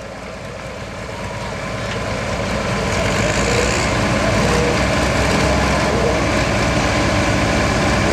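Diesel engine of a green John Deere super stock pulling tractor running while hooked to the sled, growing steadily louder for the first few seconds, then holding loud and steady.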